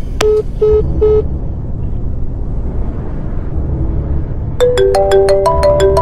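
Low droning horror-film underscore. Just after the start come three short, evenly spaced electronic beeps of one pitch, like a phone call cutting off. About four and a half seconds in, a quick run of bell-like struck notes begins, like a ringtone melody.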